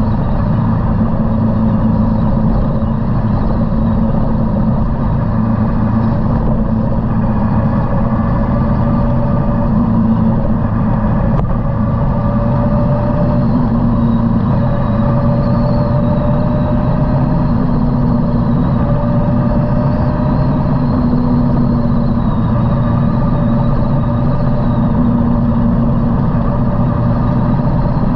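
Motorcycle engine running at a steady cruising speed, with wind rushing over the bike-mounted microphone as a dense low rumble.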